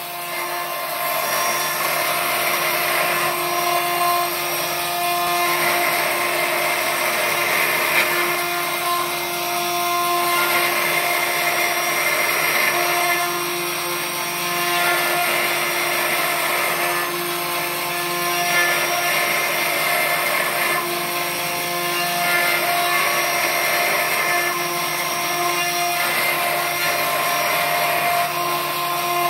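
Homemade CNC router's spindle motor whining steadily as its bit carves a relief into a wooden board, the cutting noise swelling and easing every few seconds as the tool moves through the wood.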